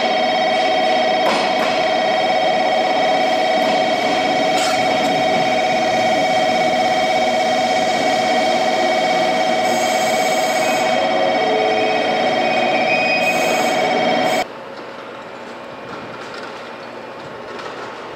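A loud, steady ringing tone with overtones sounds on the station platform, with short hisses of air about ten and thirteen seconds in; it cuts off abruptly about fourteen seconds in. After that comes the quieter running noise of a JR Kyushu 813 series electric train pulling into the platform.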